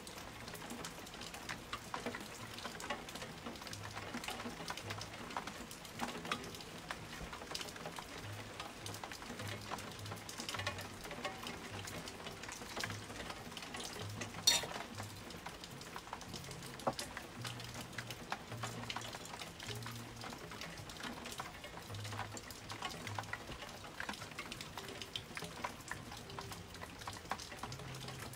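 Rain falling during a thunderstorm: a dense, steady patter of drops, with one sharper drop or tap about halfway through.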